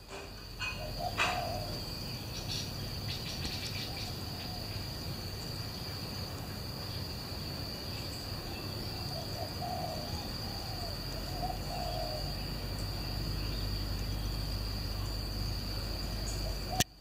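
A dove cooing in short low phrases: once about a second in, twice around the middle and again near the end. A steady high insect trill runs beneath.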